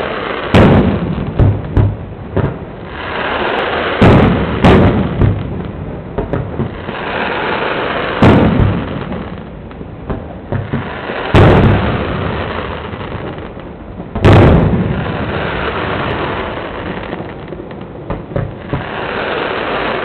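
Aerial fireworks going off: a series of loud booms, the biggest coming every three to four seconds, each with a rumbling tail, over a continuous hiss between bursts.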